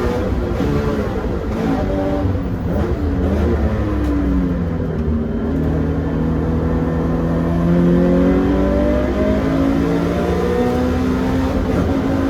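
Toyota 86's 2.0-litre flat-four engine running hard on a race track. The revs drop and waver in the first few seconds, then climb again to a peak about two-thirds of the way through before easing slightly.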